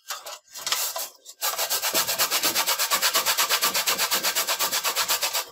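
A lemon is grated on a metal hand grater to zest it. A few short scrapes come first. About a second and a half in, fast, even scraping strokes start, about eight a second, and they stop just before the end.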